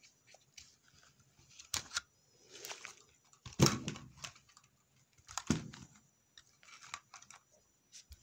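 Folding trauma shears being handled: a string of metallic clicks and knocks with rustling between, three louder knocks about two seconds apart, the loudest about a third of the way in.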